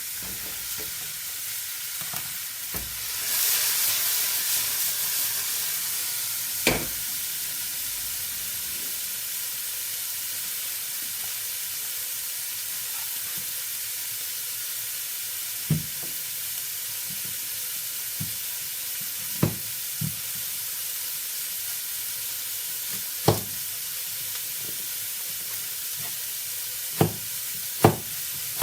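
Vegetables sizzling in a hot pan, the sizzle swelling about three seconds in and then settling to a steady hiss. Now and then a utensil knocks sharply against the pan, about half a dozen times.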